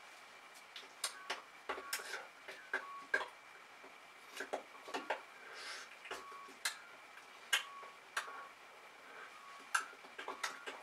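Irregular soft clicks and taps from a person's hands and body while signing, with a few brief rustles. A faint steady high tone sits underneath.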